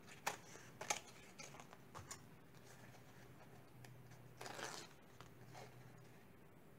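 Scissors snipping corn husk a few times, then a husk being torn into strips with a short rasp about four and a half seconds in.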